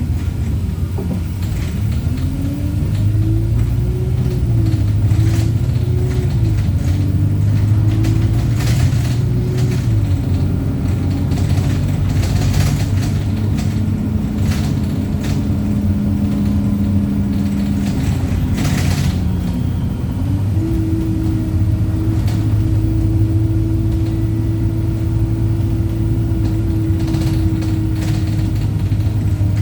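Wright StreetLite single-deck bus's diesel engine under way. Its pitch rises and falls with the gear changes over the first ten seconds, then it runs steadily, with a few brief sharp noises scattered through.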